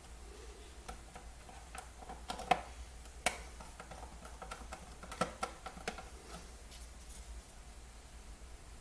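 Scattered light clicks and taps of a Phillips screwdriver driving a small screw into a ZX81's plastic base, with the case shifted on the tabletop; the sharpest click comes about three seconds in.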